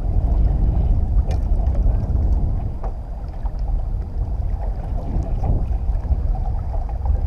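Uneven low rumble of wind buffeting the microphone on an open fishing boat, with a few faint clicks.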